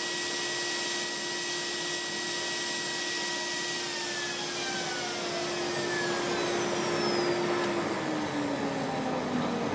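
CNC router spindle and shop dust collector running together, a steady whine over a loud rushing hiss. About four seconds in, the router's high whine winds down in pitch as it is switched off, and near the end the dust collector's hum also falls in pitch as it spins down.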